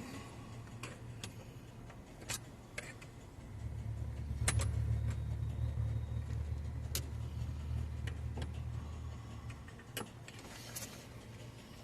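A screwdriver clicking and scraping in a truck's ignition switch where the lock tumbler has fallen out: half a dozen sharp metallic clicks, spread a second or two apart. It isn't catching the gears in the switch. A low hum swells up for several seconds in the middle and then fades.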